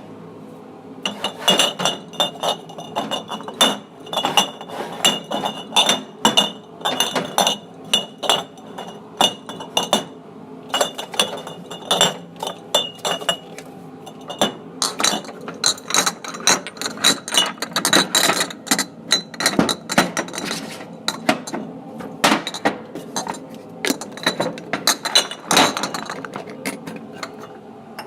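Glassware clinking: many quick, irregular knocks, several a second, each with a short high ringing tone.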